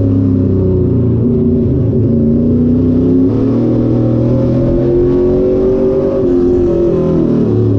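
Late model stock car's V8 engine at racing speed, heard from inside the cockpit: the engine note climbs for a few seconds under throttle, falls off about two-thirds of the way through as the driver lifts, then picks up again near the end.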